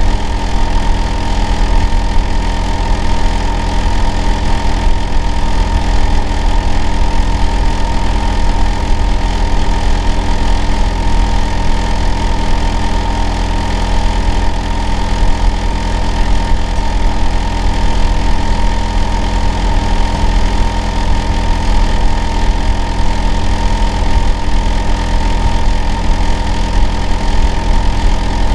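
Hitachi air-conditioner outdoor unit running steadily in heating mode: a loud, constant low drone with a steady whine near 1 kHz, the unusual noise that carries to the house next door.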